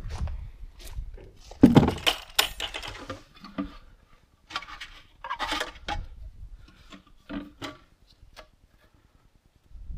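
Irregular knocks, clinks and clatter of hard objects being handled, loudest in a cluster about two seconds in, then thinning out to near quiet before the end.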